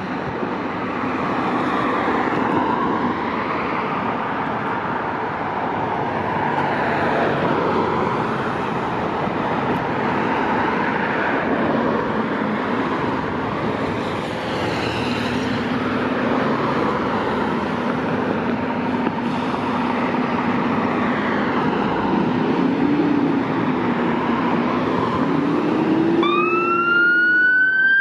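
Fire truck siren wailing on an emergency response, its pitch rising and falling over and over. About halfway through, a Rumbler low-frequency siren adds a deep sweeping tone underneath. Near the end the wail turns loud and clear as the truck draws close.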